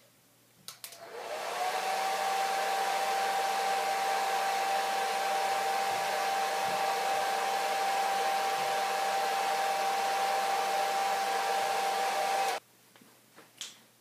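Handheld hair dryer switched on with a click, its motor whine rising as it spins up, then blowing steadily before cutting off suddenly near the end.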